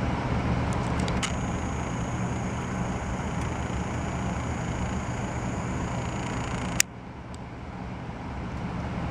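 Bryant Plus 90 high-efficiency gas furnace running: a steady rush of air with a low hum. About seven seconds in there is a sharp click, after which the sound drops and then slowly builds back up.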